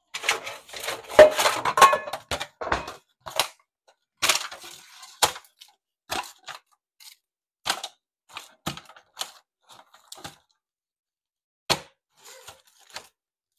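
Aluminium foil and a disposable foil pan crinkling and crackling as foil-wrapped ears of corn are handled and set into the pan: a dense run of crinkles over the first few seconds, then separate sharp crackles, one of the loudest near the end.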